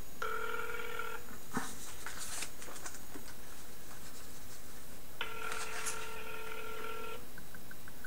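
Ringback tone of an outgoing call heard through a mobile phone's speaker: two rings, the first short, the second about two seconds long, with a few clicks and rustles between them.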